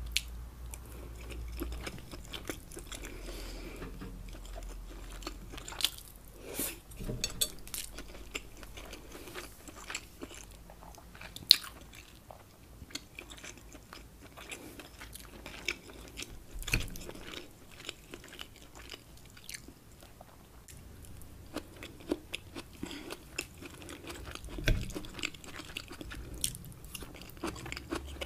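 Close-miked chewing of a mouthful of rice, shrimp and scallops, with irregular sharp wet mouth clicks and smacks.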